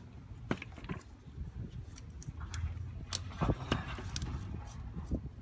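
Scattered metallic clicks and taps from tools and parts being handled on the truck, over a low steady rumble.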